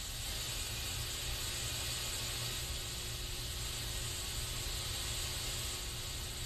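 Aerosol spray can hissing in one continuous, unbroken spray, with a low rumble underneath.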